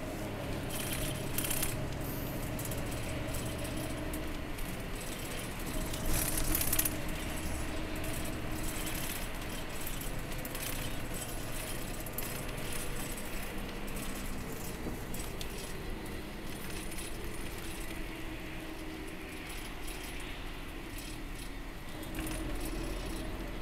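Cabin noise of an express coach at highway speed: a steady engine and road drone with a faint steady hum, and many small rattles and jingles from loose fittings. The rattling gets louder for a moment about six seconds in.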